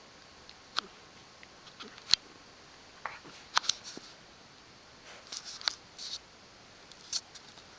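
Basset hound puppy mouthing and gnawing at a cat's head and fur: scattered short clicks and brief scuffling, snuffly bursts at irregular spacing, the sharpest click about two seconds in.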